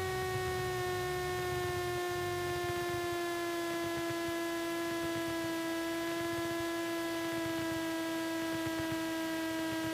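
Cessna 172 stall warning horn sounding without a break through the flare and touchdown, a steady buzzy tone whose pitch sinks slowly as the airplane slows with its nose held high. A faint low engine rumble lies beneath it.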